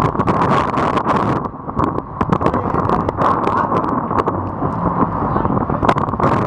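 Wind buffeting the microphone over the steady rush of a sport-fishing boat running through choppy sea, with frequent sharp spatters of spray.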